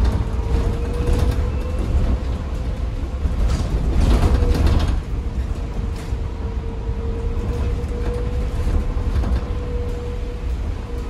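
Interior of an ADL Enviro 200 EV electric bus on the move: low road and tyre rumble with a steady whine through it. A louder rush of noise comes about four seconds in.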